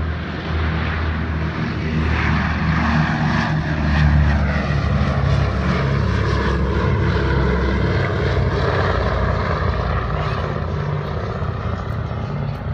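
The four radial engines of a B-17 Flying Fortress run at takeoff power as the bomber climbs out and passes: a loud, low propeller drone. It is loudest about four seconds in, then drops slightly in pitch and fades slowly as the plane moves away.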